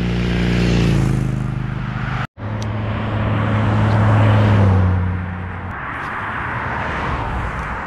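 Road traffic passing: a vehicle's engine drone swells and fades, a brief cutout about two seconds in, then a second vehicle's engine swells and stops with a rush of tyre noise that fades away.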